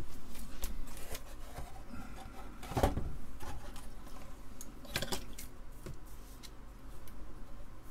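Scattered light clicks and knocks of small tools and parts being handled at a soldering bench, the two loudest about three and five seconds in.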